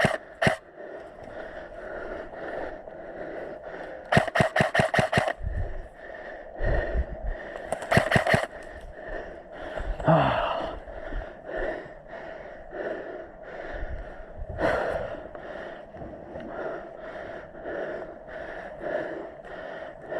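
Airsoft electric rifle (AEG) firing quick strings of shots: a rapid run of about eight about four seconds in, another short string around eight seconds, and a single shot near fifteen seconds. Heavy, steady breathing runs between the strings.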